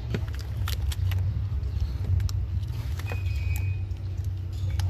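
Scattered small clicks and taps of hands and parts working in an engine bay as a new intake VANOS solenoid is lined up and pressed into place, over a steady low hum.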